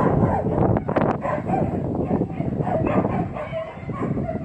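A dog whining in short, repeated whimpers, over a steady low rumble.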